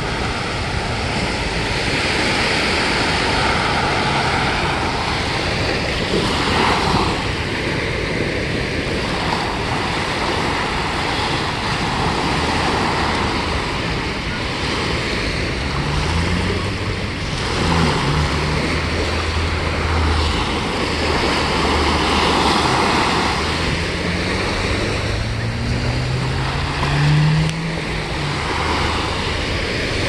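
Small bay waves breaking and washing up on a sandy beach, surging every few seconds. From about halfway, a low engine hum comes in under the surf, rising and falling in pitch.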